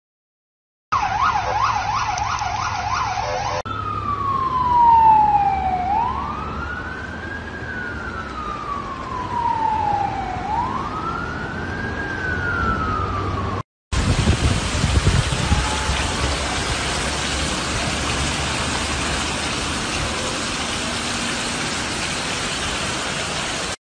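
Emergency-vehicle siren: a fast warbling yelp for a few seconds, then a slow wail that falls and sweeps back up about every four and a half seconds. Then, after a cut, a steady rushing noise of heavy rain and floodwater, with a few low rumbles near its start.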